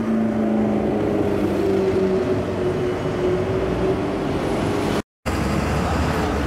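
Car engine, here the McLaren supercar's, running at low revs in slow street traffic: a steady low drone whose pitch lifts slightly and then eases. It cuts out abruptly about five seconds in, and general street traffic noise follows.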